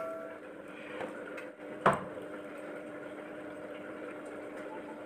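A metallic ring fading away at the start, then a single light knock about two seconds in, over a faint steady hum: small household objects being handled and set down.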